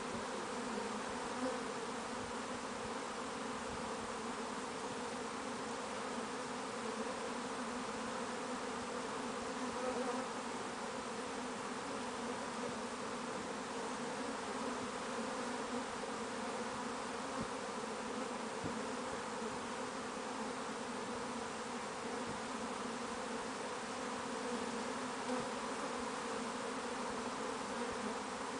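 Steady hum of a large swarm of honeybees buzzing in flight as the swarm moves into a wooden hive box, clustering at the entrance. The hum holds even and continuous, with several pitches layered together.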